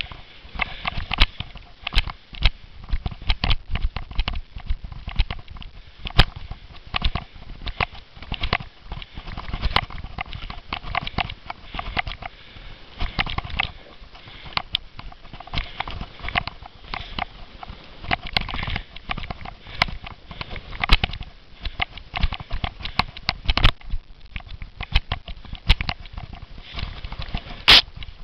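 A cyclo-cross bike and the camera carried on it jolting over bumpy grass at speed: a dense, irregular clatter of knocks and rattles over a steady hiss, with one sharper bang near the end.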